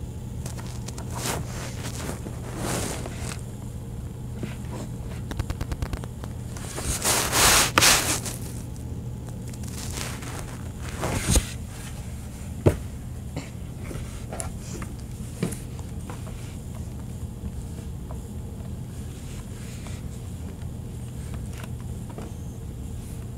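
Handling noise from a tablet being held and typed on: scattered taps and light clicks, with a longer scraping rustle about seven seconds in, over a steady low hum.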